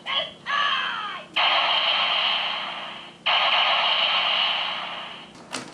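Electronic sound effects from a Kyoryuger toy's small speaker, triggered by a Zyudenchi beast battery: a short voice-like call in the first second, then two long hissing blasts that each fade away. A few sharp plastic clicks follow near the end.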